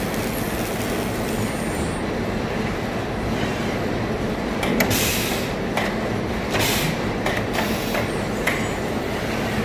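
Industrial machinery in an aluminium extrusion plant running with a steady, dense rumble, broken from about five seconds in by several short hissing bursts.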